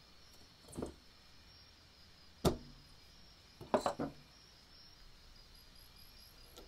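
Handling knocks and clicks from a cast-iron Hubley mechanical coin bank being opened up: a soft thump near the start, one sharp click about two and a half seconds in, then a quick cluster of knocks around four seconds.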